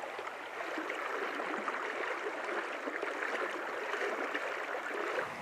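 River water flowing, a steady babbling rush.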